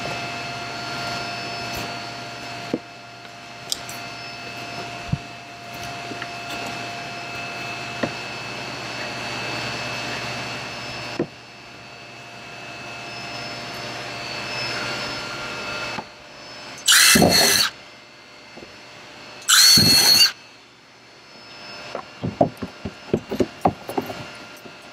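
A power drill runs in two short bursts about two seconds apart, drilling screw holes through the kayak's plastic deck for a hatch ring, over a steady background hum. Light clicking of plastic parts being handled follows near the end.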